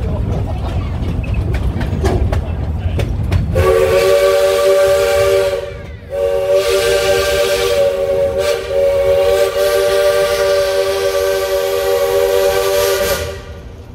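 Steam locomotive's chime whistle blowing several notes together: a short blast about three and a half seconds in, then a long one of about seven seconds. Before the whistle, the train's running rumble with clicks of wheels over rail joints.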